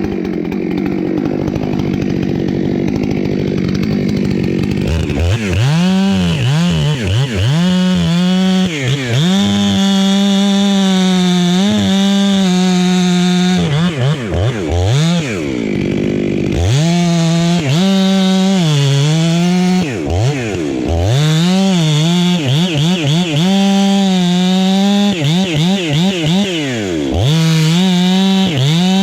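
Chainsaw making the back cut in a felling: the engine runs at high revs, its pitch dipping and recovering over and over as the chain works through the wood.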